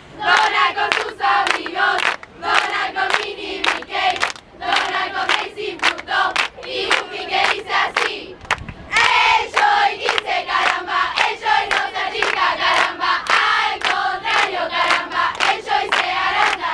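A group of young people singing a chant together in unison, loud and rhythmic, with about three sharp beats a second that sound like hand clapping.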